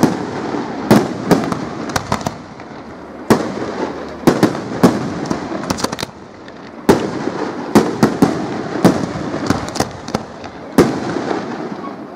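Aerial firework shells bursting: sharp bangs one after another, some single and some in quick clusters of three or four, each trailing off in an echo.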